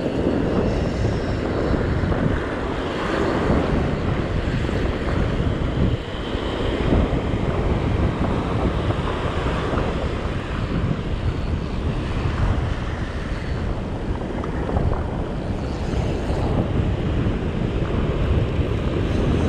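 Wind buffeting the action camera's microphone over the wash of breaking surf, a steady low rumble throughout.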